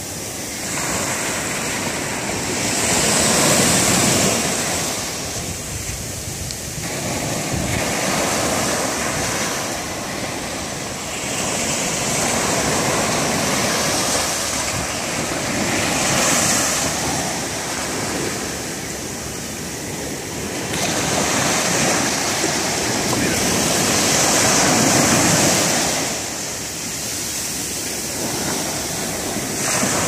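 Ocean surf breaking and washing up a sandy beach, the rush of water swelling and fading as each wave comes in and draws back.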